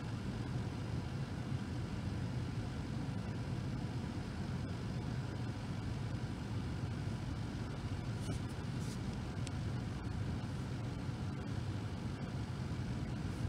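Car engine idling, a steady low hum heard from inside the cabin of the stopped car.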